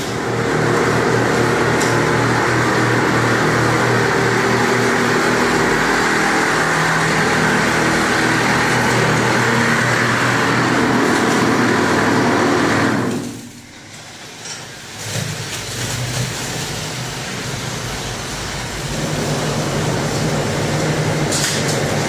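Automatic wall plastering machine running as it renders a wall, its motor and drive humming steadily with a grinding scrape of plaster. The sound falls away sharply a little over halfway through, goes on quieter and uneven, then builds back up near the end.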